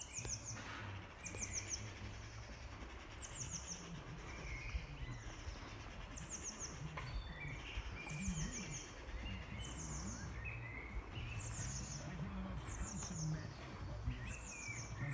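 Birdsong: one bird repeats a short, high phrase of quick falling notes about every second and a half, with softer chirps from other birds beneath it and a steady low rumble throughout.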